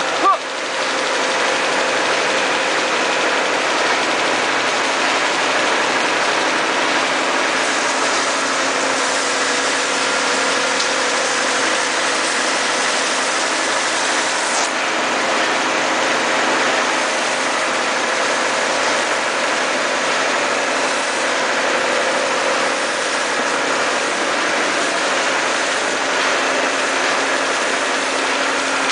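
Shallot packing-line machinery running steadily: the conveyor and hopper make a constant mechanical hum with a steady drone.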